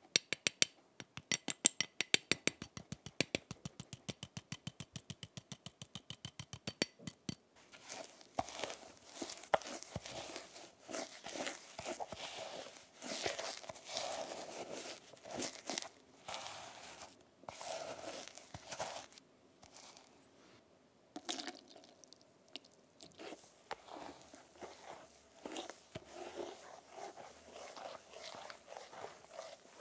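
A fine-mesh strainer being tapped to sift cornstarch over a bowl, a rapid even ticking of about five taps a second that stops about seven seconds in. Then a silicone spatula stirs and scrapes a thick egg yolk, sweetener and cornstarch paste around a glass bowl, an irregular sticky scraping.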